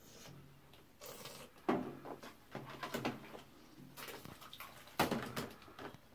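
Hard plastic bath toys knocking and clunking against each other and the tub, with small splashes of bathwater. The loudest knocks come about a second and a half in and again about five seconds in.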